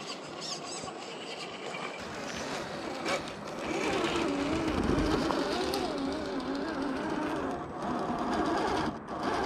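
Electric motor and gear drive of a 1/10-scale RC rock crawler whining as it crawls over rock and sand, the pitch wavering up and down with the throttle. It gets louder from about four seconds in.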